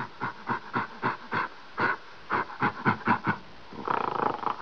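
Gorilla vocalizing in a rapid, irregular series of short calls, about three a second, with a longer, rougher call near the end.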